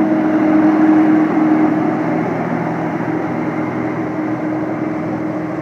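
New Holland TR96 combine harvester running steadily while combining canola: an even engine and machinery drone with a steady hum that is strongest for the first two seconds or so.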